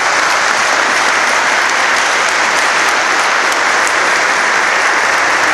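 Audience applauding steadily, a dense crowd of clapping hands.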